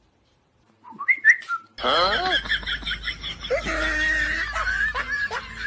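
Whistling in sliding, warbling, bird-like notes: a few short rising whistles about a second in, then a busier, continuous stretch of gliding whistles that stops just before the end.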